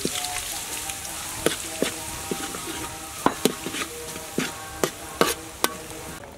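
Minced garlic sizzling in hot oil in a wok, stirred with a metal spatula that clicks and scrapes against the pan at irregular moments. The sizzle cuts off just before the end.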